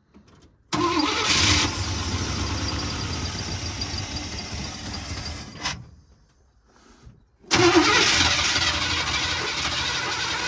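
The engine of a Chevrolet Blazer with an Edelbrock carburetor is cranked on the starter twice, about five seconds each with a short pause between. It is fed from a gas can, so it is a fuel-primed attempt to start it.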